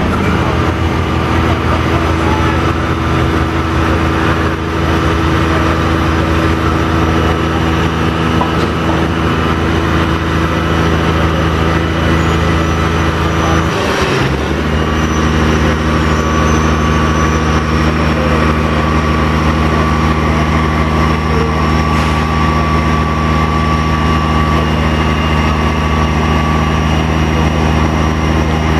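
Crane truck's engine running steadily at a constant speed, a low, even drone; its pitch dips briefly about halfway through and then settles at a slightly different steady speed.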